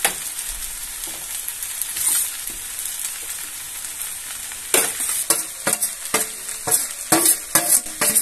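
Rice and vegetables sizzling in hot mustard oil in a kadhai. From a little past halfway a spatula starts scraping and knocking against the pan, a few strokes a second, as the rice is stirred into the vegetables.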